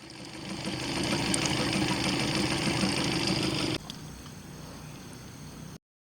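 A motor running steadily with a low hum. It fades in over the first second, drops suddenly in level just before four seconds in, and cuts off abruptly near the end.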